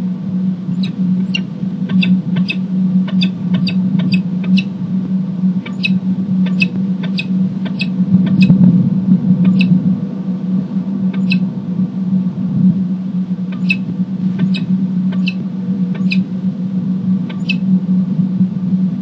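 Male peregrine falcon giving ee-chip calls, the pair's nest-ledge courtship call: short, sharp high chips in irregular runs, with longer pauses around the middle. A steady low hum runs underneath.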